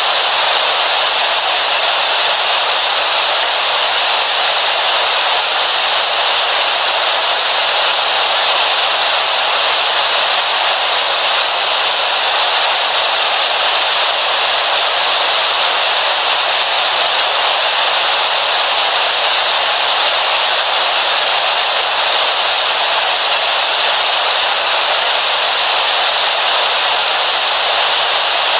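Television static: a steady, loud hiss of white noise with no change throughout.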